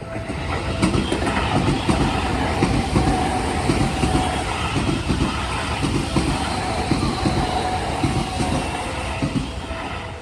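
Seibu 40000 series electric train passing over a level crossing, its wheels clattering over the rail joints in a run of quick knocks, building about a second in and easing near the end. The crossing's warning bell keeps ringing underneath.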